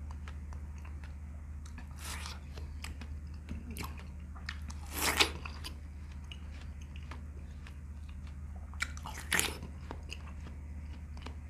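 Biting and chewing a wedge of raw watermelon, the wet crunch of the flesh with small clicks between. Three louder bites come about two, five and nine seconds in, the middle one the loudest. A steady low hum sits underneath.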